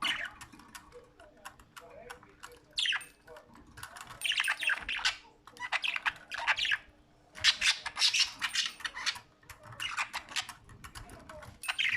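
Budgerigars chattering and squawking in repeated bursts of a second or two, with sharp clicks and short quieter gaps between them.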